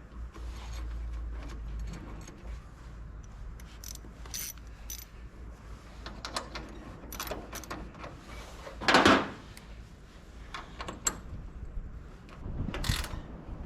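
Metal clinks, knocks and rattles of hand tools and bolts while fitting brackets to a Jeep's steel body, with one louder scrape about nine seconds in.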